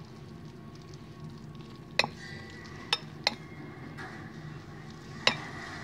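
Metal spoon stirring cooked Maggi instant noodles in a glass bowl, with four sharp clinks of the spoon against the glass spread through the stirring.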